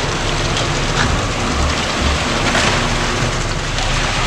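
Concrete mixer truck running during a pour: a steady low engine hum under a continuous rushing, rain-like noise of wet concrete moving down the chute, with a few faint ticks.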